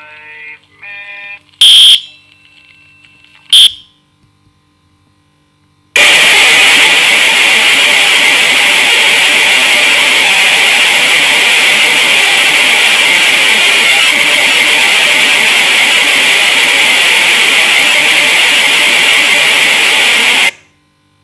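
Loud electronic alarm: two short high-pitched beeps about two seconds apart, then after a pause a long harsh, noise-like blare lasting about fifteen seconds that cuts off suddenly.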